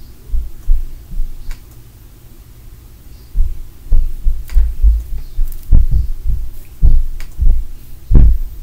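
Muffled heavy thumps and bumps coming through the building from a neighbouring unit, like stomping, jumping or things dropped on the floor. A few come early, then after a short lull a run of about two thumps a second follows, with the loudest near the end.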